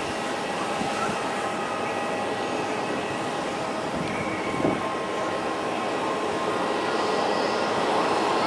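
Boeing 737-800's CFM56-7B jet engines running at taxi power: a steady rush with a thin whine over it, growing a little louder near the end. There is one short knock a little past halfway.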